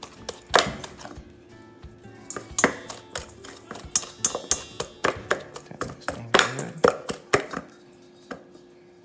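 Wire pastry blender striking and scraping a stainless steel mixing bowl in quick, irregular clinks as cold butter is cut into flour and brown sugar. The strikes thin out near the end.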